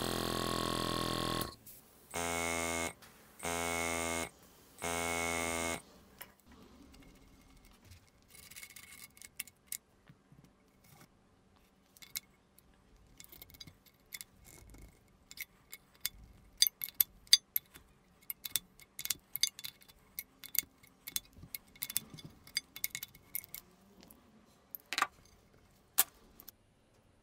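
Small KKmoon airbrush piston compressor running, stopping, then kicking in for three short runs of under a second each, cycling on and off because it has no air tank. Then a long stretch of sharp metallic clicks and clinks as a wrench loosens the brass fittings and the pressure regulator is unscrewed from the compressor head, with one louder clink near the end.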